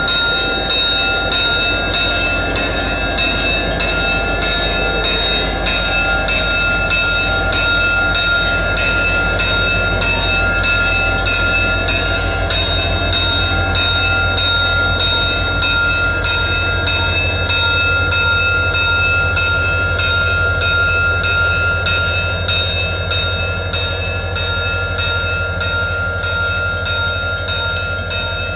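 EMD SD40-3 diesel-electric locomotive passing at close range: its 16-cylinder engine rumbles under a steady high whine, with regular clicking of wheels over rail joints. The sound eases slightly near the end as the locomotives draw away.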